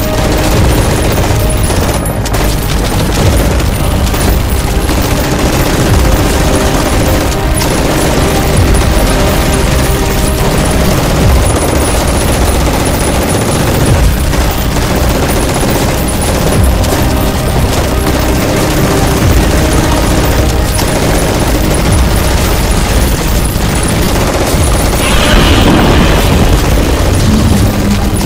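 Dense, continuous gunfire and explosion sound effects: rapid volleys of shots over booming blasts, with a brief brighter burst near the end.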